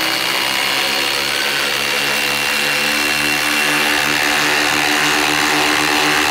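Two cordless impact drivers, a Hercules and a Milwaukee M18 Gen 4, set to speed 3 and hammering at the same time as they drive 14 mm, 6-inch lag screws under heavy load. Their motors whine and the impact mechanisms rattle, steadily and without a pause.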